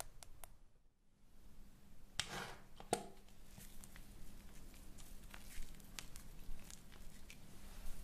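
ASMR invisible-trigger sounds close to the microphone: a short rustling swish about two seconds in, a sharp click a moment later, then scattered soft clicks and rustles.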